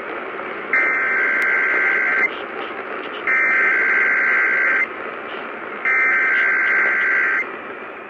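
Emergency Alert System SAME header from an AM radio's speaker: three identical bursts of screechy two-tone digital data, each about a second and a half long, spaced about a second apart. Steady static hiss fills the gaps between them.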